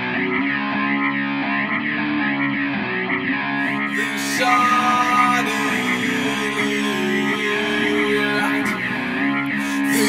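Instrumental music: a guitar with an effect that makes its tone waver in a steady repeating pattern, with no vocals and little deep bass.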